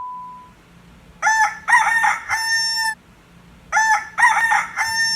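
A rooster crow played twice from a phone as its ringtone or alarm tone, the same crow repeating about two and a half seconds apart. A steady beep fades out in the first half second.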